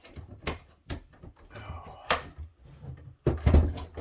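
The plastic housing of an AMX Modero NXT-CV7 touchpanel being handled and worked apart: a few sharp plastic clicks, the loudest about two seconds in, then a quick run of knocks and thumps near the end.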